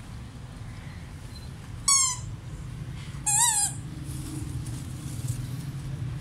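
Two short, high-pitched kitten meows about a second and a half apart, the second one longer and wavering in pitch.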